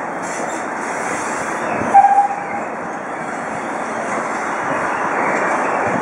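Train hauled by GWR 4200-class steam tank engine 4247 pulling away, a steady running noise from the engine and coaches, with one short, loud, high tone about two seconds in.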